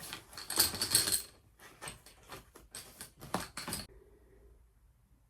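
Rummaging through a tool bag: a quick run of clicks, clatters and rustles as items are handled. It is loudest about a second in and dies away after about four seconds.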